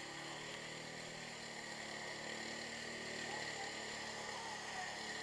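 Arctic Cat 700 ATV engine running steadily under load as the quad churns through deep mud.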